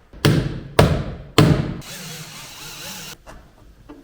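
Three hard thumps about half a second apart, a Chevrolet Lacetti's refitted tail light struck by hand to test it for rattle, followed by about a second of steady rushing noise that cuts off abruptly. No rattle follows the blows: the worn locating-pin bushings, packed with foam rubber and mastic, now hold the light firmly.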